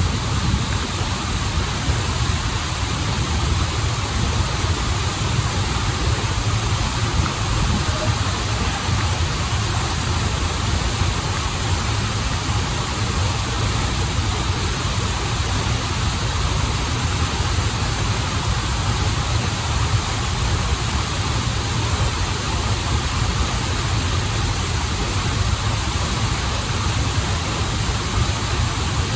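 Waterfall pouring steadily: a constant rush of water with a deep rumble underneath and an even hiss on top.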